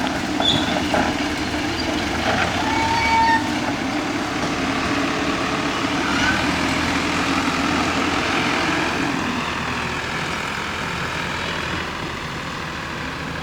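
Diesel engine of a Mahindra Earth Master backhoe loader running steadily while it works, with a few short high squeaks in the first few seconds. The sound eases slightly near the end.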